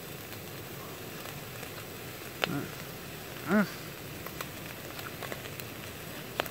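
Bacon sizzling in a frying pan over a gas camping stove, a steady hiss with a couple of sharp pops of spitting fat. About halfway through, a man gives a brief hum.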